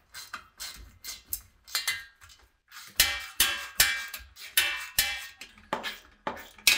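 A hand socket tool turning out the screws of an electric motor's sheet-metal fan cover: a run of sharp metallic clicks and rattles with a little ringing from the cover, growing louder about halfway through.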